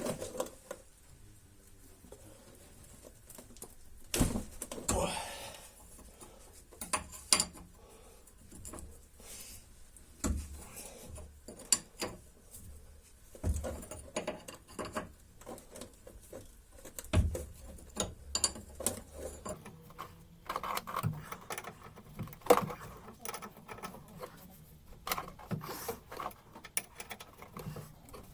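Irregular metallic clinks and knocks of hand tools, a few sharper than the rest, as an 18 mm wrench undoes the nut of a front anti-roll bar link.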